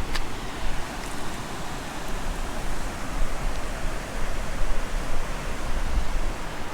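Steady rushing noise with uneven low rumbling: wind buffeting the microphone outdoors.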